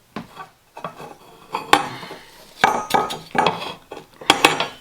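Metal clinking and clattering: copper pipe and fittings being handled, a string of irregular sharp knocks, some with a brief ring.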